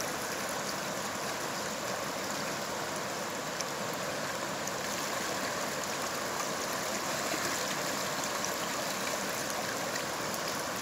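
The Lehigh River running fast over shallow rapids: a steady rush of water.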